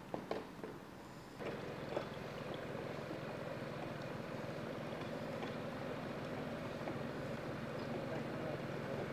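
A few knocks in the first second, then a narrowboat's engine running steadily from about a second and a half in, growing slowly louder as the boat comes into the lock.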